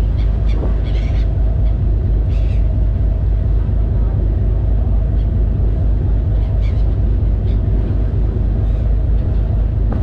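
Passenger ferry's engine running with a steady, deep drone, heard from the open deck. A few short, high gull cries cut through it, most of them in the first few seconds.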